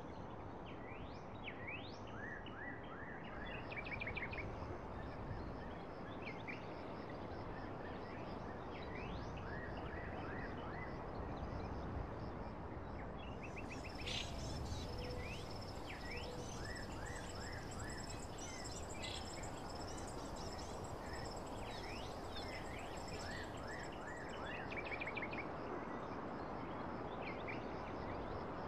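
Birds chirping and trilling in many short, quick calls over a steady rushing background noise.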